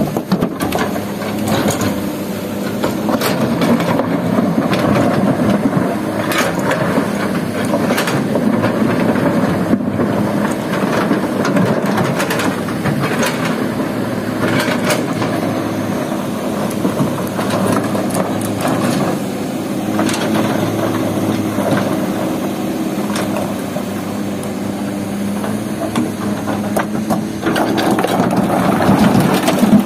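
Kobelco hydraulic excavator's diesel engine running steadily under load while rocks knock, scrape and crack in its steel bucket and tumble into a truck bed. The rock clatter grows louder near the end.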